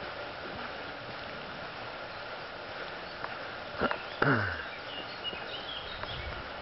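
Steady rush of a mountain stream running beside a forest trail. About four seconds in, a click is followed by a brief, louder sound that falls steeply in pitch.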